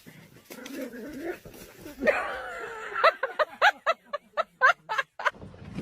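A dog giving a rapid series of about ten short, high, rising whimpers, starting about three seconds in.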